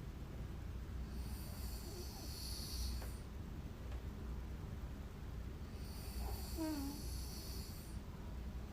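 A woman snoring in her sleep: two long, hissing breaths about four seconds apart, the second with a short falling squeak in it, over a low steady hum.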